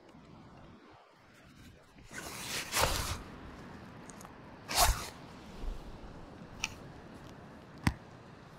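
Steady wash of wind and surf on an open beach, with two short, louder rushes of noise about two and five seconds in and a couple of faint clicks near the end.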